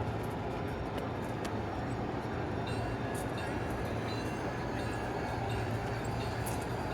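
G-scale model train running along its track: a steady hum with scattered light clicks.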